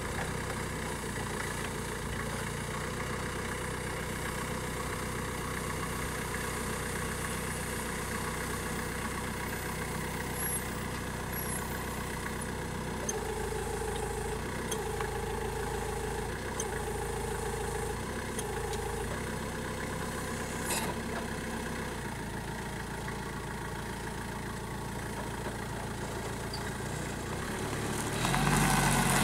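Nissan FJ02A25U diesel forklift engine running steadily. Around the middle a tone pulses on and off for several seconds, and the engine gets louder near the end.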